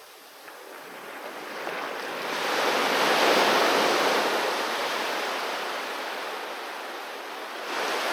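Sea waves breaking on the shore: one wave swells up to a crash about three seconds in and washes back slowly, and the next begins to break near the end.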